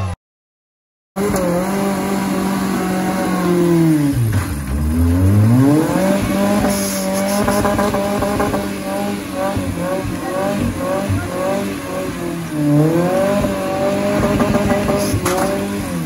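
Off-road competition 4x4's engine revving hard under load as it climbs a steep muddy bank. It is held at high revs for long stretches and drops and climbs back up in pitch twice. The sound cuts out completely for about a second just after the start.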